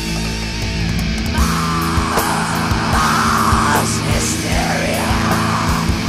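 Death/thrash metal music: distorted electric guitars over a fast, driving drum beat, loud throughout.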